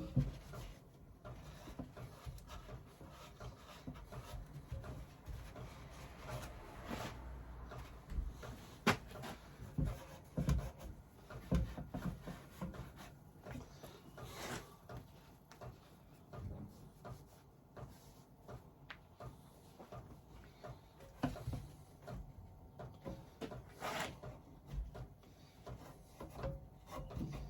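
Cloth rubbing on wood as excess glue is wiped from freshly clamped chair joints, with occasional light knocks and clicks from handling the chair and clamps.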